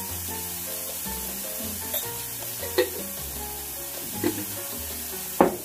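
Chopped onion and mushrooms sizzling in a frying pan while a wooden spatula stirs them, with a few sharp knocks against the pan, the loudest near the end. Background music plays under it.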